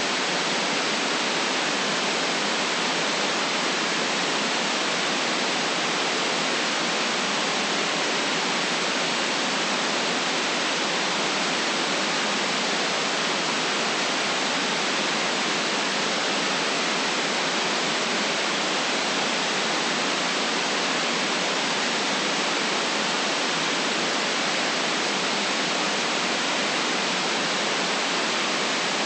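Steady white noise: an even, unchanging hiss with no deep rumble in it.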